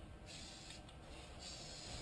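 Aerosol can of spray primer hissing in several short bursts with brief pauses between.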